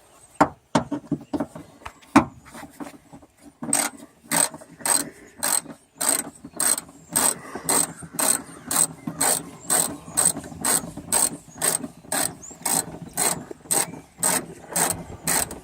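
Hand ratchet with a 10 mm socket backing out the last nut that holds the rear spoiler. A few loose clicks come first, then from about four seconds in a steady ratcheting at about two clicking strokes a second.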